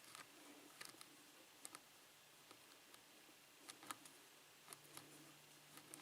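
Faint, scattered metallic clicks of a lock pick and tension wrench working the pin stacks inside an Abus padlock's Schlage-keyway core, during single-pin picking.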